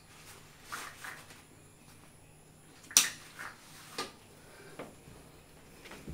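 A baby bed rail's white plastic tube frame and mesh fabric panel being handled on the floor: a few light rustles and clicks, the sharpest click about three seconds in.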